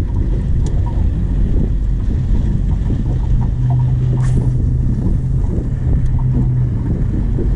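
Wind rumbling on the microphone, with a low steady hum for about three seconds in the middle.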